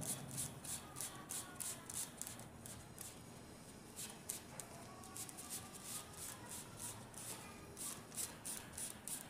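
Hands working electrical wire at a false-ceiling channel: faint scratchy rustling and rubbing of wire, about three strokes a second, thinning out briefly in the middle.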